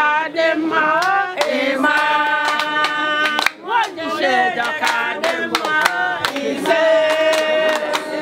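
A group of women singing together to steady hand clapping, with long held notes about two and seven seconds in.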